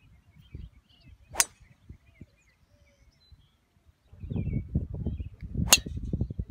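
Golf club striking the ball on two full swings, each a single sharp crack, about four seconds apart. A low rumble runs under the second strike.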